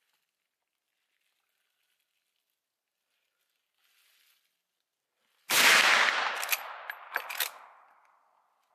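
A single shot from a reproduction first-model Winchester 1894 lever-action rifle firing a black powder .38-55 cartridge, about five and a half seconds in. The report dies away over about two and a half seconds, with a few sharp cracks in its tail.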